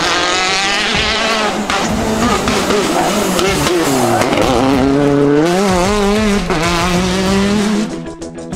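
Peugeot 208 rally car's turbocharged four-cylinder engine at full racing pace. The revs fall to a low point about four seconds in, then climb again in steps through gear changes and hold, before the sound drops away sharply near the end.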